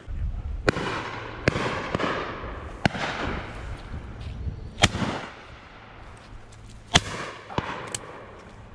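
Shotguns firing on a pheasant drive: about seven sharp reports, unevenly spaced, some faint and distant, with the two loudest past the middle.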